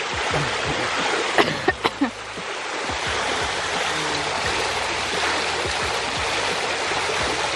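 Water from a tiered garden fountain pouring and splashing into its basin: a steady rush. A few brief sharp sounds come close together about a second and a half in.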